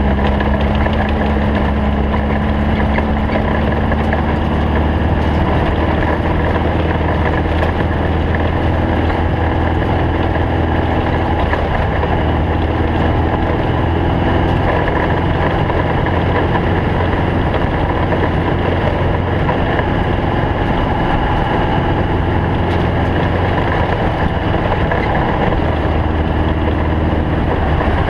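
Stock Volkswagen Beetle race car driving off-road, its air-cooled flat-four engine running steadily under a dense wash of road and rattle noise.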